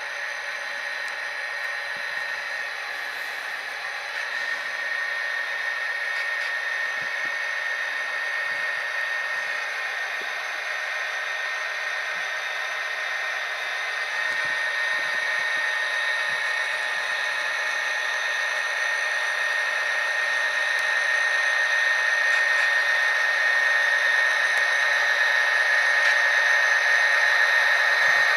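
Tsunami sound decoders in HO-scale Athearn SD60 and SD40-2 model locomotives playing EMD diesel engine sound through their small onboard speakers: a steady running drone with a high whine over it, thin and with almost no bass. It slowly grows louder as the models approach.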